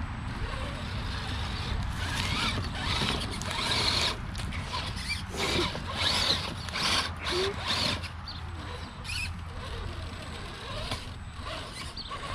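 Redcat Gen8 RC rock crawler's electric motor and gears whirring in short, uneven bursts as it climbs over rocks, with the tyres and chassis scraping and knocking on the stones, busiest in the middle.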